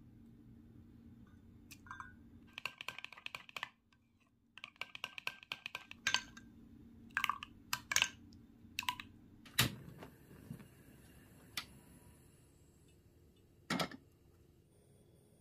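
Metal spoon clinking against a small glass bowl while stirring a thick soy-sauce and syrup seasoning: two quick runs of rapid clicks, then single taps about a second apart, and a last knock near the end.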